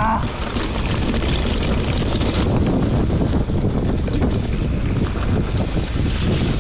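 Wind buffeting the camera microphone over a steady rumble of an enduro mountain bike riding down a trail.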